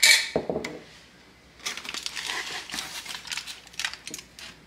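A short clatter at the start, then aluminium foil crinkling as a foil cooking pouch is handled and held open.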